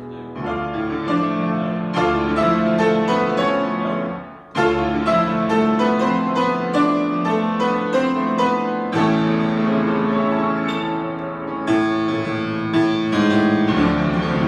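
93-year-old grand piano, freshly tuned, played in full chords struck one after another; the sound dies away briefly about four seconds in before a loud chord starts the playing again.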